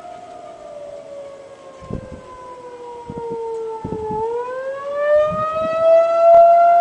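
Federal 2001-130 electromechanical outdoor warning siren sounding the wavering attack signal: its single tone slides down in pitch for about four seconds, then climbs quickly back up and holds high, getting louder near the end.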